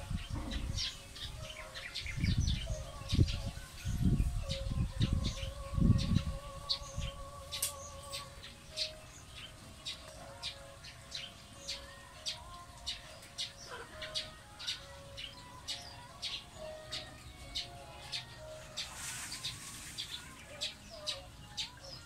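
Eurasian tree sparrows chirping: short, high, repeated chirps, about one or two a second. Low rumbling thumps run through roughly the first seven seconds.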